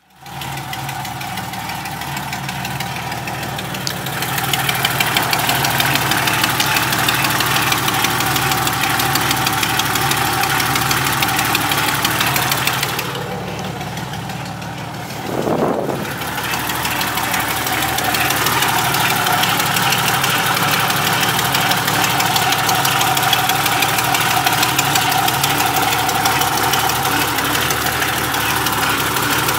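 An engine running steadily with a fast, regular ticking or knocking on top, the odd noise it is making. Its sound drops away a little about halfway through, swells briefly, then settles back to the same steady running.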